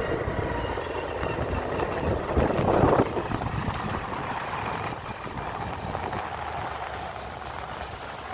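Engine and road noise of a moving vehicle, a steady low rumble, with a brief louder rush of noise about two to three seconds in.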